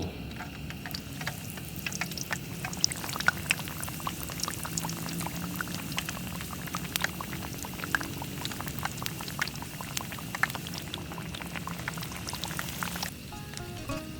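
Chicken katsu frying in hot oil: a steady sizzle with many sharp crackling pops, which cuts off suddenly near the end.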